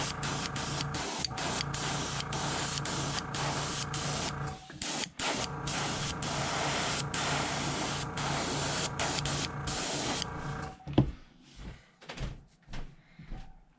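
Airbrush spraying paint in rapid short bursts, a steady hiss over a steady hum, cut by many brief pauses as the trigger is worked. It stops about ten seconds in, followed by one sharp click and a few light knocks as the airbrush and clamp are handled.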